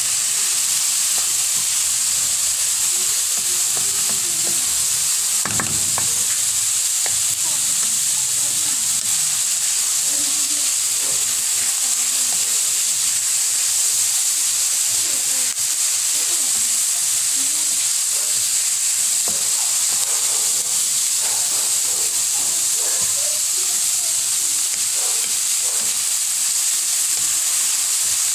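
Diced carrot and onion sizzling in hot oil in a pan, a steady hiss, while a spatula stirs and scrapes them at intervals: the vegetables are being sautéed.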